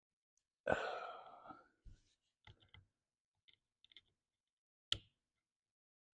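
Metal parts and tools being handled during overdrive reassembly: a louder clatter about a second in that rings on briefly, then a run of light clicks and a sharp click near the end.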